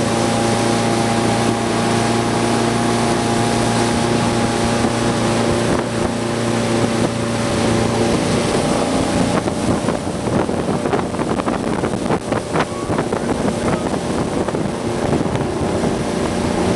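Tow boat's engine running steadily at speed, with the rush of wind and water. About eight seconds in, the engine hum fades under gusty wind buffeting the microphone.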